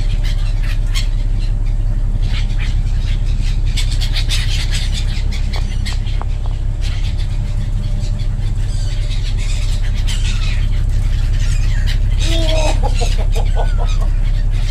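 Steady low drone of the ferry's engine with wind noise, and black-headed gulls calling, with a run of squealing calls near the end.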